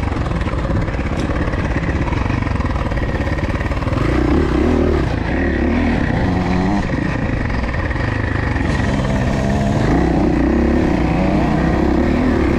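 Suzuki dirt bike engine running hard under riding load, its revs rising and falling continuously.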